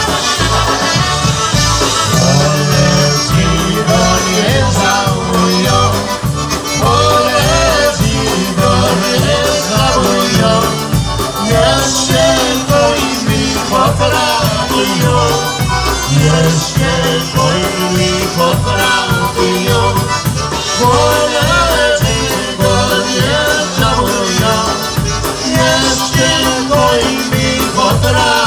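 Live polka band playing: piano accordion and concertina over a bass guitar and drum kit keeping a steady oom-pah beat, with trumpets, and several band members singing into microphones.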